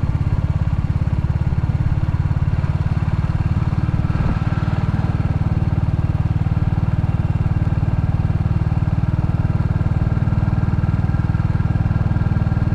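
Royal Enfield Classic 350's single-cylinder engine running steadily as the motorcycle is ridden along, with an even, regular exhaust beat.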